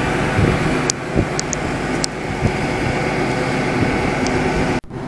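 Diesel passenger train idling at the platform: a steady engine hum with a few faint high ticks. The sound cuts out abruptly for a moment near the end.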